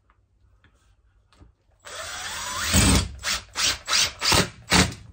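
Cordless drill driving a screw into a wall panel: it starts about two seconds in and runs steadily with a rising whine, then runs in about six short bursts until near the end.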